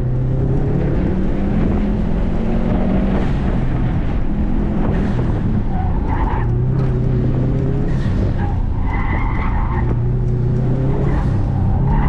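Subaru WRX STI's turbocharged flat-four engine running hard under load at speed, its pitch holding and shifting between gears, with tyres squealing in patches about six and nine seconds in as the car corners hard.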